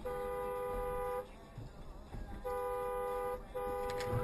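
Two-note car horn sounded three times in quick succession: two blasts of about a second each, then a third held on.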